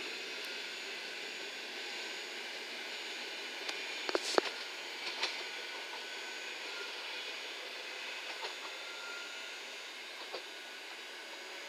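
Electric multiple unit running away down the track, a steady rumble and hiss slowly fading as it recedes, with faint steady whining tones. A quick cluster of sharp clicks about four seconds in is the loudest moment.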